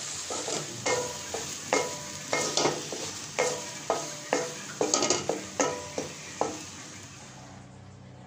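Spatula scraping and stirring a thick paste frying in a pan: a run of scrapes about two a second over a steady sizzle. The scraping stops near the end and the sizzle fades.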